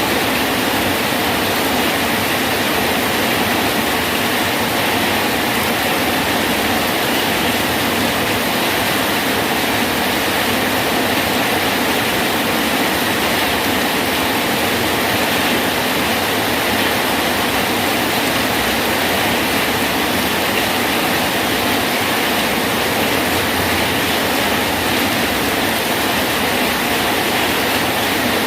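Rain falling steadily on a bridge: a constant, even hiss of dense rainfall that does not let up or change.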